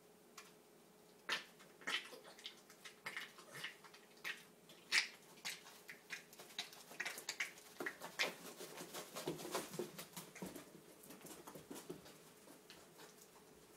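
A Boston terrier in an epileptic seizure: irregular sharp clicks and scuffs from his convulsing body, a few a second, growing busier with some duller knocks in the second half, then dying down near the end.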